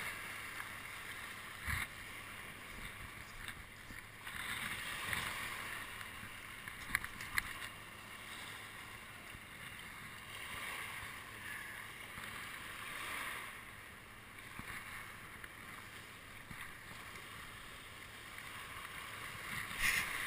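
Small waves washing over a shallow rocky reef shelf: a hiss of foaming water that swells and fades every few seconds, with a few faint clicks.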